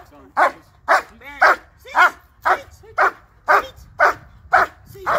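German shepherd barking in a steady, even rhythm of about two sharp barks a second at the decoy during bite-work training.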